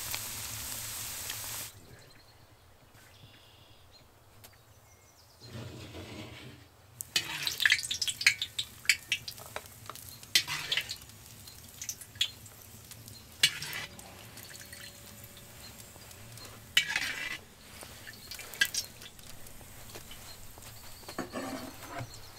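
Cubes of fat sizzling in hot oil in a cast-iron kazan, which stops abruptly early on. Later comes a run of sharp metal clinks and scrapes as a metal skimmer scoops the fried cracklings out of the kazan, with a few more clinks spread through the rest.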